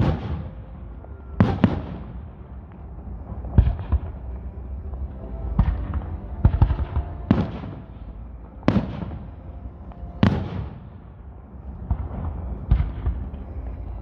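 Aerial firework shells bursting overhead: about a dozen sharp booms at uneven spacing of one to two seconds, over a steady low rumble.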